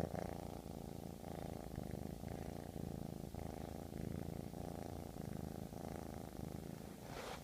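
Domestic cat purring close up, a fast steady rumble that swells and eases about once a second with each breath in and out. A brief burst of noise comes near the end.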